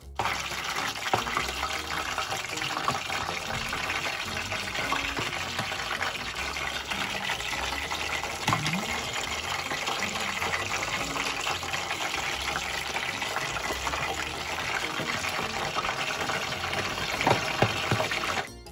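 A whole chicken deep-frying in hot oil under a glass lid: a steady, dense sizzle and crackle of the oil bubbling around it.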